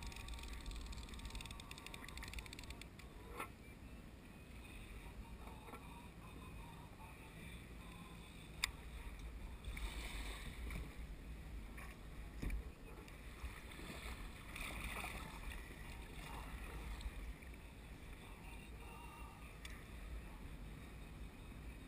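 Kayak moving through choppy sea: water sloshing and splashing against the hull, with a low wind rumble on the microphone. A few sharp knocks stand out, the loudest a little past the middle.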